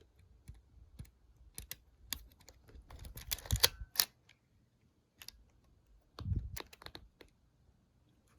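Scattered small clicks and taps of a Nikon F3 35mm film camera being handled and its controls worked by hand, busiest in the first half, with a duller low knock a little after six seconds.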